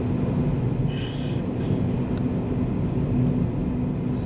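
Steady road and engine noise of a vehicle driving along a highway: a continuous low rumble with a steady hum.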